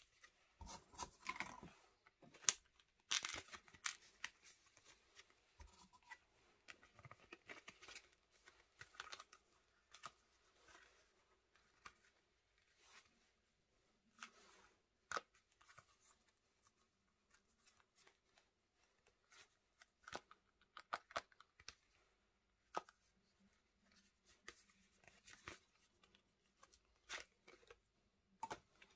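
Plastic cards sliding in and out of the pockets of a stiff vegetable-tanned leather card wallet as it is handled, with leather rubbing and short scrapes and clicks. The handling is busiest over the first ten seconds, then comes in scattered taps and slides.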